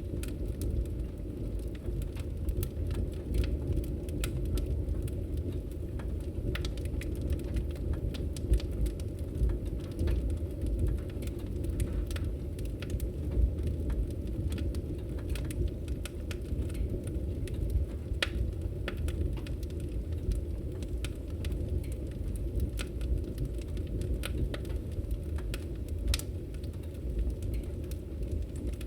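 Fireplace fire crackling: a steady low noise of the flames with frequent sharp pops and snaps scattered irregularly throughout.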